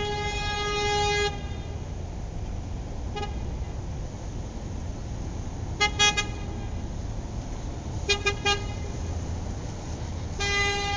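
Horn toots over a steady low rumble: one held tone that stops about a second in, a brief toot a few seconds later, short quick clusters of toots around the middle and later, and another long tone near the end.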